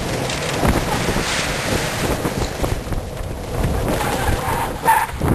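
Wind buffeting the microphone over a low rumble from a moving golf cart, with a short pitched sound near the end.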